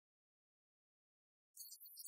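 Near silence, broken near the end by faint, choppy high-pitched crackle.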